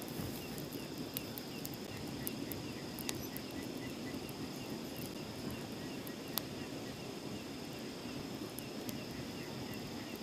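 Wood campfire crackling, with sharp pops scattered through, over a steady low rushing noise. Insects trill in a high, unbroken tone with bursts of quicker chirping.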